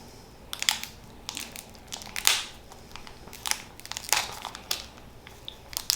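Foil wrapper of a Pokémon card booster pack crinkling in irregular crackles as it is twisted and pulled at by hand, a pack that is hard to tear open.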